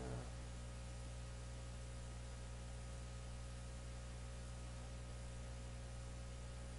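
Steady electrical mains hum with a faint hiss underneath, the recording's background noise, unchanging throughout.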